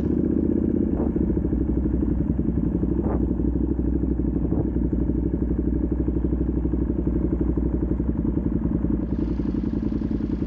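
A Ducati Panigale V2's 955 cc V-twin, fitted with a full titanium Vandemon exhaust, runs steadily at low revs as the bike rolls slowly, with a rapid, even train of firing pulses.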